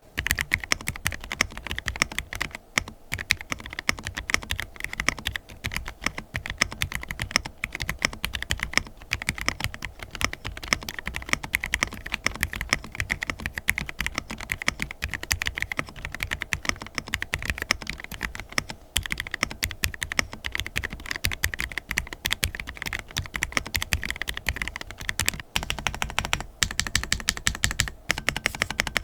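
Fast, continuous typing on a mechanical keyboard fitted with Gateron UHMknown linear switches (UHMWPE stems, nylon top housings, factory lubed), the keys clacking as they bottom out, with a few brief pauses.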